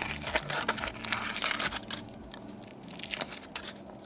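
Foil wrapper crinkling and tearing as it is peeled off a chocolate egg: dense crackling for about two seconds, then thinning out to a few scattered crinkles.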